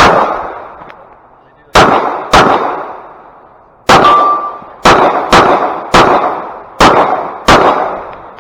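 Pistol shots fired as a rapid string during a match stage: one right at the start, then eight more in pairs and singles over about six seconds, each followed by a long echoing decay. A short steady ringing tone sounds just after the shot about four seconds in.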